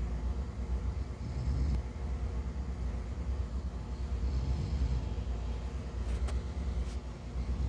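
A person snoring softly, slow breaths coming about every three seconds over a steady low rumble.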